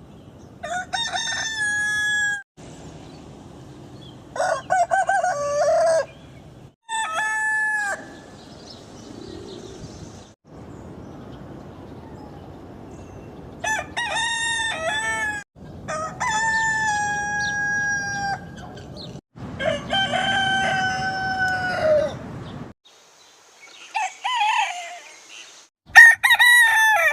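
Roosters crowing: about eight cock-a-doodle-doos in a row, each lasting one to two and a half seconds. They are spliced together from different recordings, so the background changes abruptly between crows.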